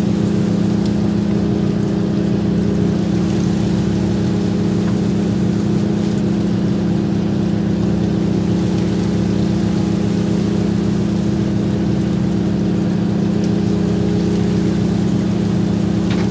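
Fishing boat's engine running steadily: a loud, even low hum that holds one pitch throughout.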